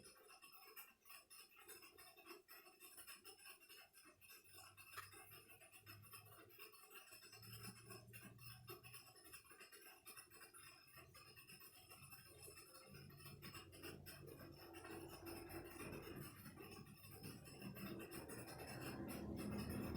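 Near silence, with faint scratching and light clicks of small-screw work on a laptop's case. A low rumble builds steadily louder over the last few seconds.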